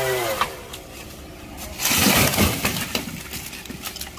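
Two-stroke chainsaw winding down and stopping, then about two seconds in a cut tree limb crashes to the ground with a heavy thud and the crackle of breaking branches and leaves, followed by a few scattered snaps.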